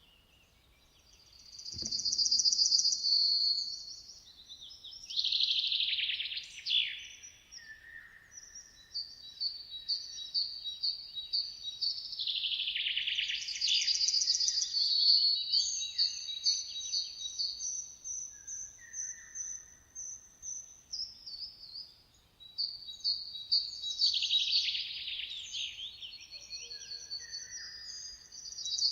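Songbirds singing: high-pitched phrases of rapid trilled notes and whistles, repeated every few seconds, with a soft low thump about two seconds in.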